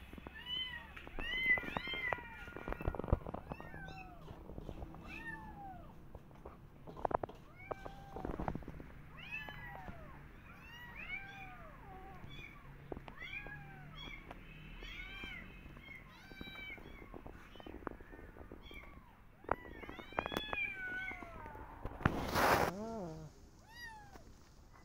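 Kitten mewing over and over: short, high calls that rise and fall, about one or two a second. A brief, loud burst of noise comes near the end.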